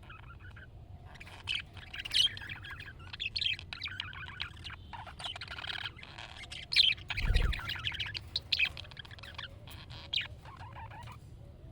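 Budgerigar warbling and chattering: a fast, broken run of chirps and squawky notes. A short low thump sounds about seven seconds in.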